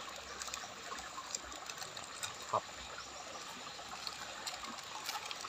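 Faint trickling water with light crackles and ticks, and one soft knock about two and a half seconds in.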